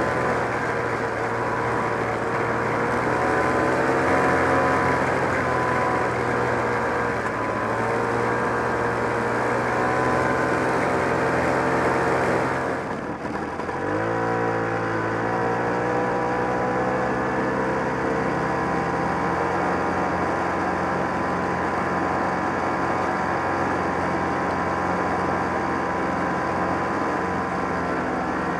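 1969 Polaris Mustang snowmobile's 372 cc JLO two-stroke engine running under way, its pitch wavering up and down with the throttle. About halfway through the sound breaks briefly, then the engine pitch climbs and holds steady.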